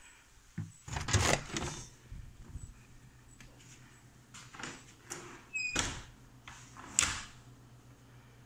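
A door with a lever handle being opened and shut: knocks and rattles of the handle and latch about a second in, more around five to six seconds, and a sharp click about seven seconds in as the latch catches. A low steady hum sets in about a second and a half in.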